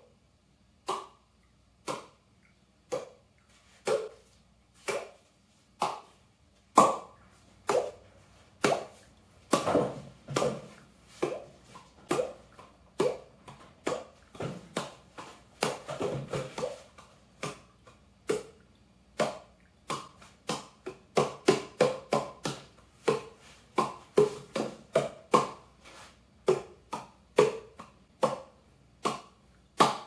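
Cupped-hand 'water drop' claps: each clap is a sharp pop with a short hollow tone, like a drop falling into water. They come about once a second at first, then quicker and shifting in pitch from clap to clap, played as a rhythmic tune.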